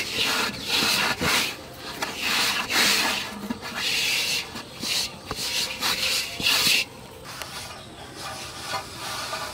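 A hand rubbing and mixing crumbly flour bait dough against the inside of a stainless steel bowl, with rough scraping strokes about once a second. The strokes stop about seven seconds in, leaving a quieter background.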